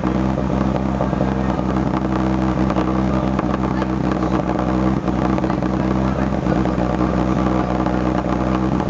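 M16 halftrack's White 160AX six-cylinder petrol engine idling steadily on its first run, heard at the open end of its exhaust pipe extension.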